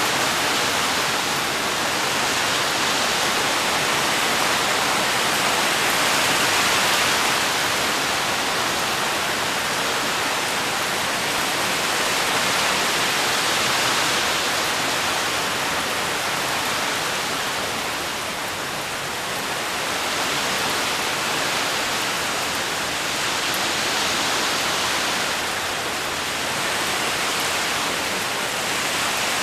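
Steady rain falling on palm fronds and garden foliage, an even hiss that swells and eases slightly.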